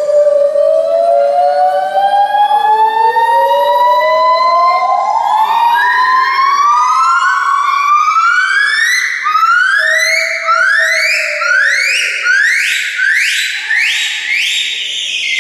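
Monkey calling in a series of rising whoops. Long, slow upward glides in the first half give way to shorter, quicker notes that climb higher and come faster toward the end.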